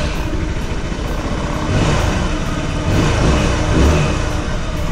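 Four-stroke scooter engine running just after a restart, with the throttle blipped a few times so it swells louder about two, three and four seconds in. It is being warmed back up to operating temperature so the freshly filled oil level can be rechecked.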